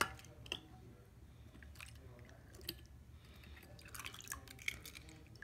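Faint small splashes and drips of water as a toy diecast car is dipped in a bowl of water and lifted out, with scattered light clicks that come thicker near the end.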